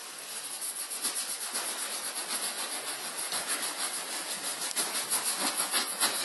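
Cloth rubbed briskly back and forth over a velvety-napped Lancel leather handbag, working in cleaning cream: a scrubbing hiss in quick, even strokes, several a second.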